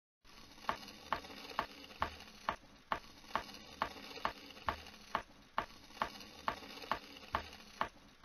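Cartoon sound effect of a wheelbarrow being pushed along: a steady rolling rattle with a sharp click about twice a second, some clicks carrying a short high squeak.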